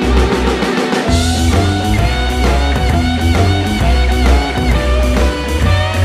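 Rock music with electric guitar, bass and drums, with a cymbal crash and a heavier bass line coming in about a second in.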